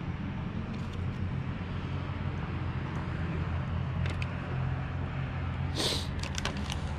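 A steady low mechanical hum, like an engine or motor running nearby, with a few small clicks and a brief crinkle of a plastic zip-top bag about six seconds in as pieces of fish are dropped into it.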